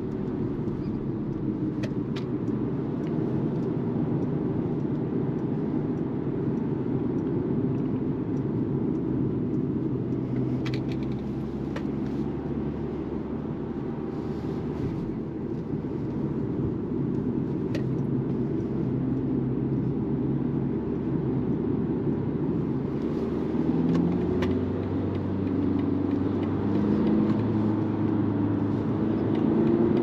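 Cabin sound of a BMW 220d Gran Coupe at motorway speed: a steady drone of road noise and the four-cylinder diesel. In the last several seconds the engine note climbs in steps as the car accelerates.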